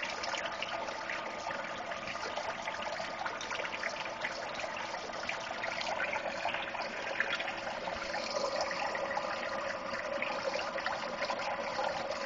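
Water churning and splashing steadily through a homemade fluid bed gold concentrator, driven by a 1,000 gallon-per-hour pump.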